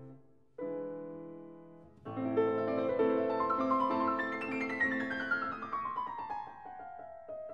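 Piano music: a chord about half a second in, a fuller passage from about two seconds, then a run of notes falling steadily in pitch through the second half.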